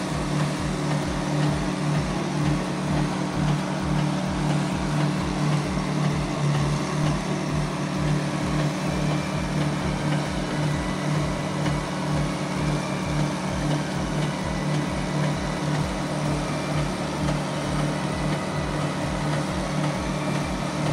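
Concrete line pump running: a steady engine drone with a regular low pulse about twice a second from the pumping strokes, pushing 3,000 PSI pump mix through a 2-inch line.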